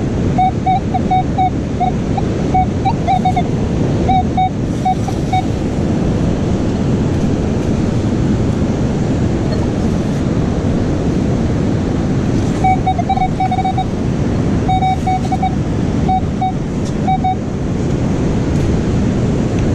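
Metal detector giving runs of short beeps, all at one pitch, in two spells near the start and again about two-thirds through, over steady surf and wind noise on the microphone.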